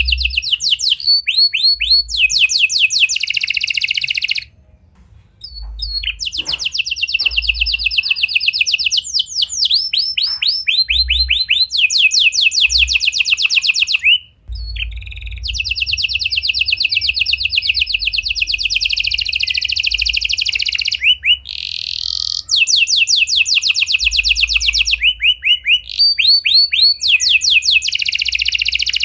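Red-factor domestic canary singing: long, rapid trills of quickly repeated chirping notes, phrase after phrase, with short breaks about four and a half seconds in and about fourteen seconds in.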